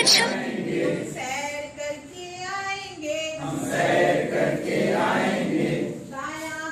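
A group of adults singing a Hindi action song together, with a woman's voice leading.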